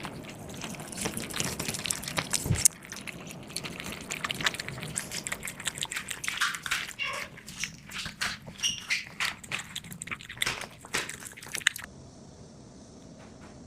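Cats eating cat food: many quick, irregular clicks and crunches of chewing, with one loud thump about two and a half seconds in. The eating sounds stop about twelve seconds in, leaving a faint steady hiss.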